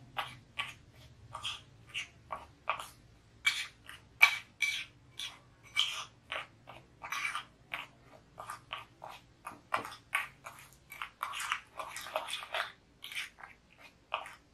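Metal spoon scraping and clicking against a ceramic bowl in quick, uneven strokes, about two to three a second, as instant coffee, sugar and water are beaten by hand into dalgona coffee foam.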